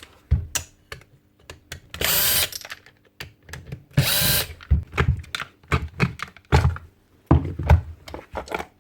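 A handheld power drill-driver runs in two short bursts of about half a second each, roughly two seconds apart, with scattered clicks and knocks of metal and plastic parts being handled around them.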